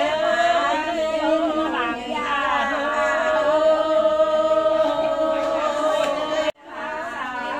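A voice singing a slow, unaccompanied chant with long held notes. The sound drops out abruptly about six and a half seconds in, then the singing goes on.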